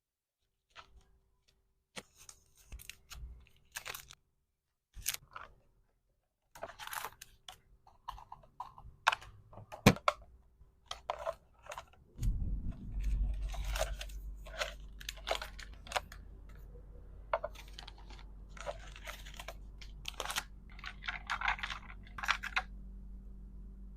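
Hands packing a gift bag: crinkling and rustling of plastic wrap and bags, with scattered clicks and taps. A low steady hum comes in about halfway through and carries on under the handling.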